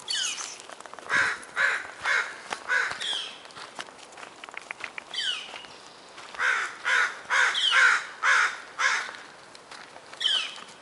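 Steller's jay giving harsh, rapidly repeated calls in two bouts of about five or six calls each, with a few higher, falling squawks between them.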